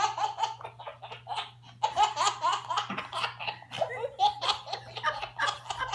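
A toddler laughing hard in quick, repeated peals of giggles.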